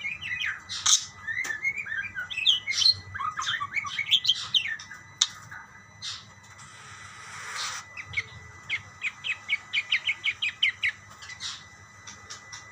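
Budgerigars chirping and warbling back and forth. About seven seconds in there is a brief harsh rasp, followed by a fast run of short, evenly spaced chirps.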